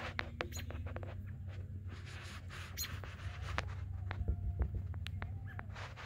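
Scattered small clicks and short squeaks over a low steady hum.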